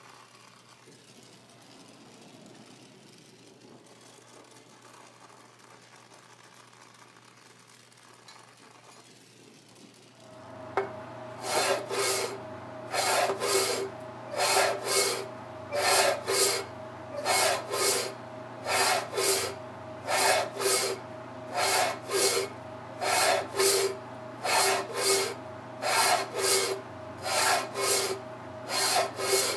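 A bench belt sander starts about ten seconds in and runs with a steady hum, while a copper tube is pressed against the moving belt in repeated grinding strokes, in quick pairs about every second and a half.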